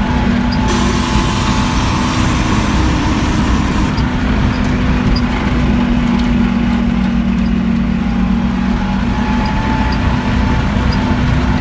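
KhTZ T-150 tractor's V8 diesel engine running steadily under way, heard from inside the cab as a constant drone.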